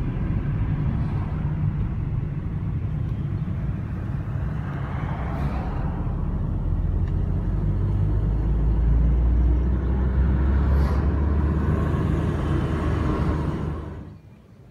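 Car driving on a highway, heard from inside the cabin: a steady low engine and road rumble that grows somewhat louder past the middle and cuts off suddenly near the end.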